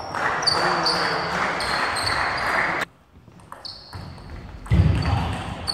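Table tennis rally: the plastic ball clicks sharply off the bats and table again and again. A broad background noise cuts off abruptly about halfway through, and a loud low thump comes near the end.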